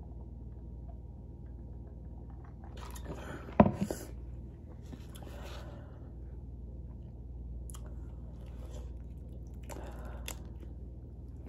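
Close-up eating sounds: chewing and hands pulling apart and cracking seafood-boil shellfish, in scattered crackly patches over a low steady hum, with one sharp knock about three and a half seconds in.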